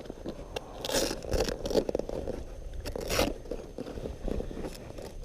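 Camping gear being handled and packed: irregular bursts of scraping and rustling.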